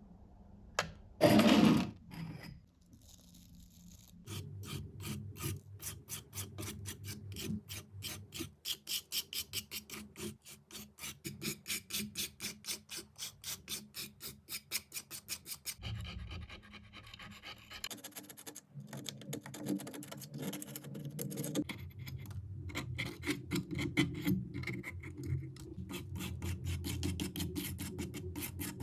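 Hand rubbing or abrading strokes on a scale model car, scratchy back-and-forth strokes at about two to three a second, becoming less regular in the second half. A brief loud noise comes about a second in.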